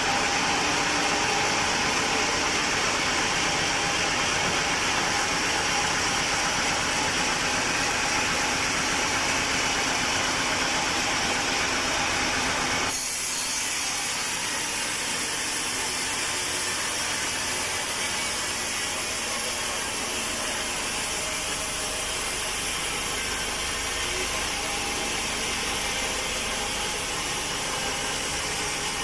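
Sawmill saw cutting a teak log: a steady, dense grinding noise of blade through wood with the machine running. A little under halfway through the sound changes abruptly to a thinner, slightly quieter run, with less of the low and middle.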